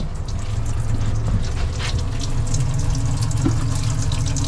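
Water spraying from the fill fitting of an empty fiberglass fish box as its pump runs, splashing against the box walls: the line is flowing again after being blocked, which the owner puts down to ice in the line. A steady low hum runs underneath.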